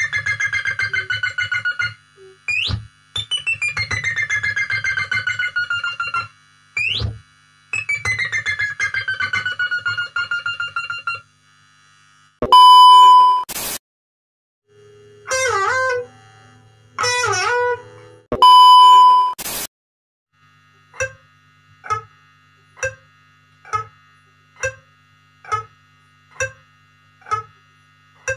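Electric guitar imitating sounds: first three long wailing notes that swoop up and slide down, a kuntilanak ghost's cry; then two loud steady beeps with wobbling, bending notes between them, a fart imitation; then short muted plucks about once a second, a clock ticking.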